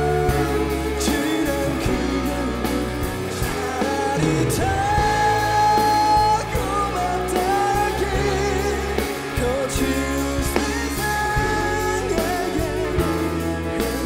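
A live band playing a pop song: a singer holding long notes with vibrato over bass, guitar and keyboards.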